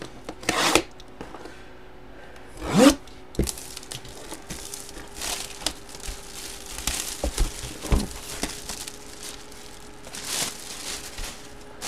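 Clear plastic shrink-wrap being torn and crinkled off a trading-card box, in irregular bursts of rustling, loudest twice in the first three seconds.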